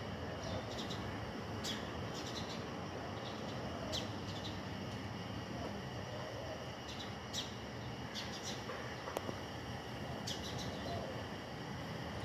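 Small birds chirping now and then, short high chirps every second or two, over a steady low background hum.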